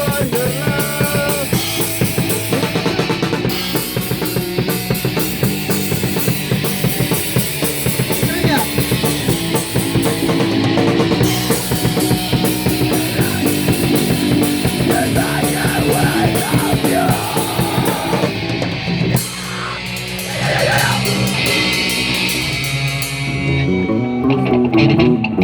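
Rock band music with drum kit and distorted guitars, dropping to a quieter passage about two-thirds of the way through before building again.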